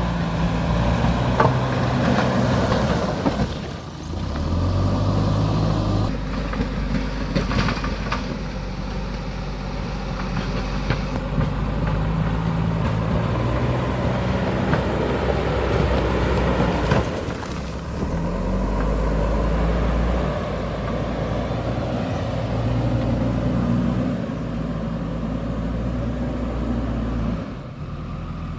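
JCB backhoe loader's diesel engine running and revving up and down under load as the machine digs and levels, with a few knocks along the way.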